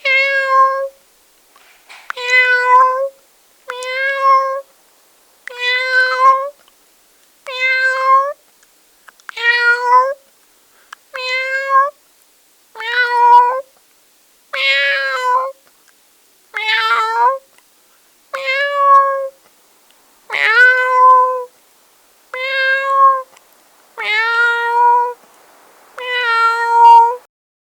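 Domestic cat meowing over and over, about fifteen separate meows, each roughly a second long with short pauses between them.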